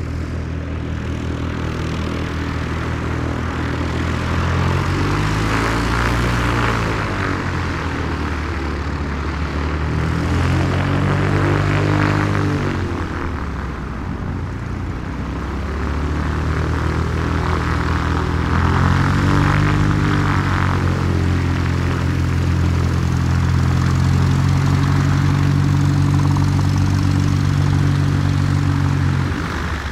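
Small propeller plane's engine running close by, its pitch rising and falling several times as the throttle is opened and eased. It then holds a steady, louder note for several seconds before dropping near the end.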